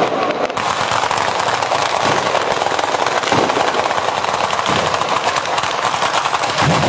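Batteria alla bolognese, a ground-level chain of firecrackers strung between poles, going off in a rapid, continuous rattle of sharp bangs, like machine-gun fire.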